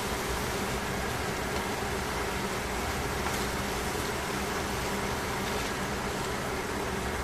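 Sliced pork sizzling in a stainless steel frying pan, a steady hiss, over a steady low hum.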